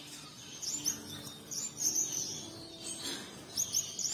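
Birds chirping: quick, high, repeated chirps that come thicker in the second half.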